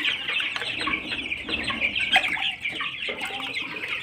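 A flock of young chickens peeping and cheeping all together in a continuous chorus of many short, high calls.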